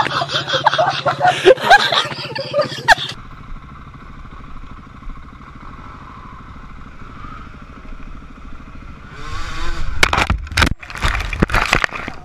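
Dirt bike engines revving amid loud jumbled noise, cut off after about three seconds by one dirt bike running steadily. Near the end come a run of heavy knocks and crashing as the bike goes down into the undergrowth.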